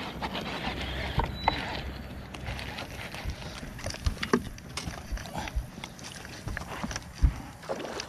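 Scattered knocks and clicks from a bass boat's deck and fishing tackle while an angler fights a hooked smallmouth bass, over a steady background hiss. The loudest knock comes near the end.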